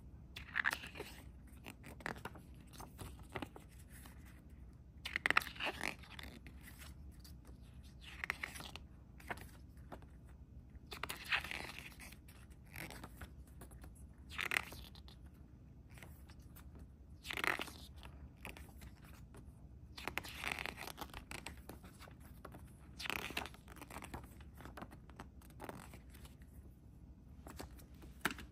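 Pages of a paper CD booklet being turned one after another, a short swish roughly every three seconds.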